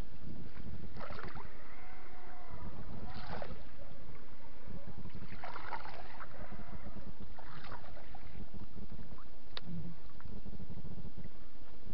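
Bucktail spinnerbait splashing and swishing through the water surface in four or five separate sweeps as it is worked in a figure eight beside the boat, over a steady low rumble; one sharp click late on.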